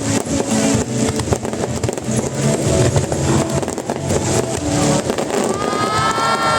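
Fireworks display: a continuous dense crackle of bursting shells. Near the end a high whistle rises and then falls in pitch.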